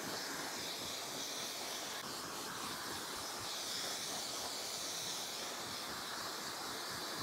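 A steady, even hiss with no distinct events, strongest in the high range.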